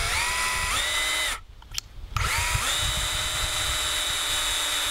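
Electric drill driving a screw into the top of a wooden post: the motor whines, stops about a second in, then spins up again with a rising whine and runs steadily.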